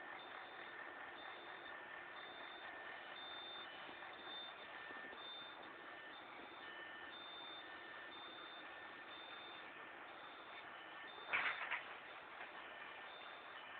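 Faint high-pitched electronic beeping repeating about once a second over a steady hiss, from an unidentified beeper. A brief sharp knock about eleven seconds in is the loudest sound.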